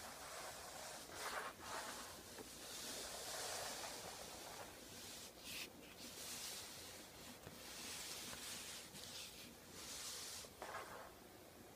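Faint rustling and hiss, likely handling noise from a handheld camera, with soft swells of noise every second or two.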